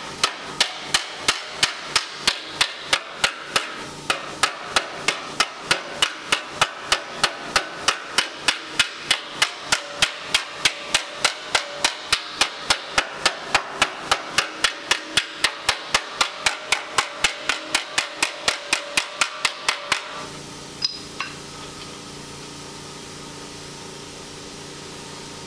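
Steel hammer striking the TIG-welded seam of a 1935/36 Ford sheet-steel dash held over an anvil, about three even blows a second, smashing the weld down. The hammering stops about twenty seconds in; two lighter knocks follow, then only a steady hum.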